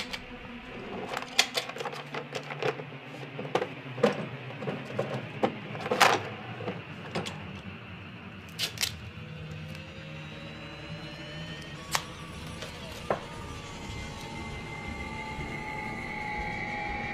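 Sharp clicks and knocks from a wooden dresser drawer being opened and searched and a roll of tape being handled. From about halfway, rising siren-like tones of film score music swell louder to the end.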